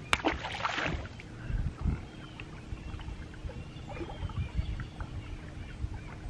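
Sounds from a bass boat while an angler fishes: a sharp click and a brief rush of noise in the first second, then a few low knocks and faint short chirps over a steady faint hum.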